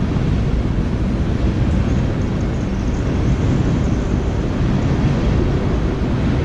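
Wind buffeting the camera microphone: a loud, steady low rumble with no pauses.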